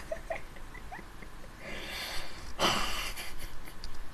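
A young man's stifled laughter: a few short high squeaky giggles, then two breathy bursts of laughing held back behind a hand.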